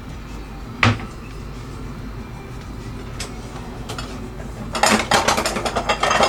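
Kitchenware clatter: one sharp knock about a second in and a couple of light taps, then a fast run of clinking and rattling from about five seconds in.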